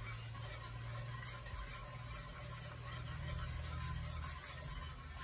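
Metal whisk stirring thick bacon gravy in a cast iron skillet: a soft, even scraping and swishing over a low steady hum.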